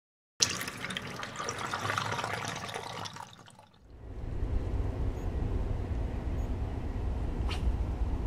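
A rushing, splashing water sound effect that lasts about three seconds and fades out. It is followed by a low, steady outdoor rumble with a single click near the end.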